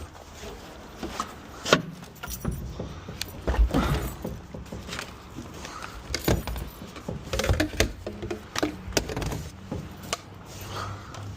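Irregular knocks, clunks and rattles of junk being picked up, moved and dropped while a debris pile is sorted, loudest a few times in the middle.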